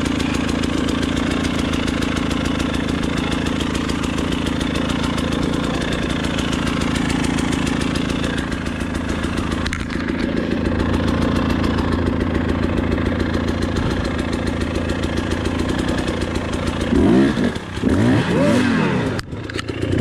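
KTM 300 XC-W two-stroke enduro motorcycle engine idling steadily, then revved up and back down twice near the end.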